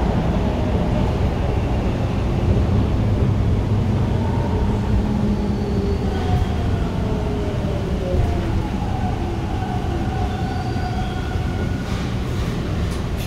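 Bombardier T1 subway car running, heard from inside: a steady low rumble with the traction motor whine falling in pitch midway, as the train slows.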